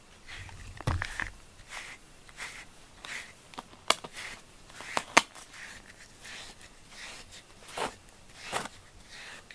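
Rubber grooming brush stroking through a cat's fur: a steady run of short, soft brushing strokes, a little more than one a second. A thump comes about a second in, and a few sharp clicks about four and five seconds in.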